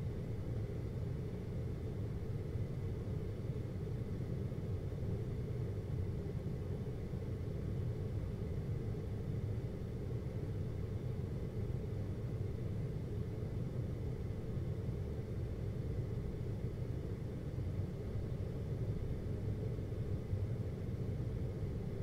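GoldStar window air conditioner running with a steady low hum.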